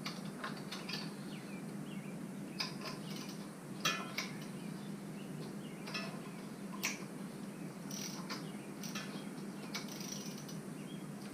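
Hand tools clicking and clinking against metal while the bolts of a Jeep XJ's water pump pulley are broken loose, the pulley held with channel-lock pliers. A few separate sharp clicks come every second or two over a steady low hum.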